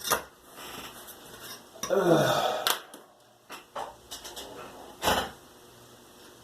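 Small hard objects knocking and clattering on a work table in a series of separate sharp knocks, with a short voice sound about two seconds in.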